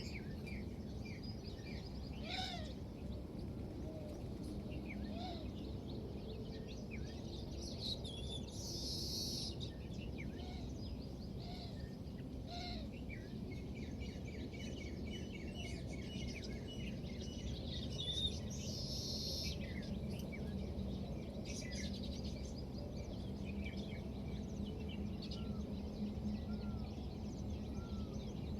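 Many small birds chirping and calling in a steady outdoor background noise, with two brief high buzzy bursts, one about a third of the way in and one about two-thirds in.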